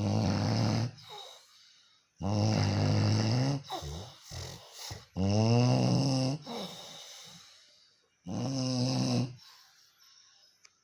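Snoring: four loud snores, each about a second long, coming roughly every two and a half to three seconds with quiet breaths between.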